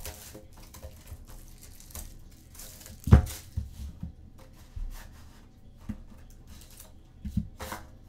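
Sports card packaging being torn open and the cards handled: scattered rustles and short knocks, the loudest about three seconds in.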